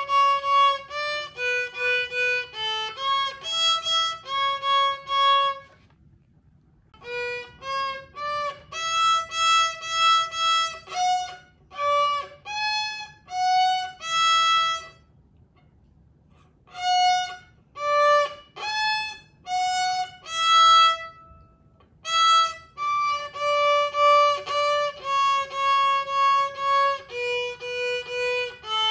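A young child, a beginner three months into lessons, playing a simple tune on the violin, one separate bowed note after another. She stops briefly three times, about six, fifteen and twenty-one seconds in.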